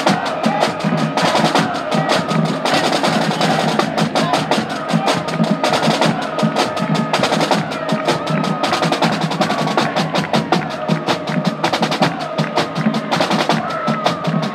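College marching band playing on the march: a rapid, continuous snare-drum cadence with rim clicks and bass drum, and wind instruments holding tones underneath.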